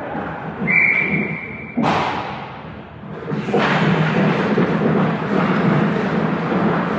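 Ice hockey rink sounds. A whistle blows one steady high note for about a second, then a sharp crack of an impact cuts in. From about three and a half seconds on, a broad rushing scrape of play on the ice holds.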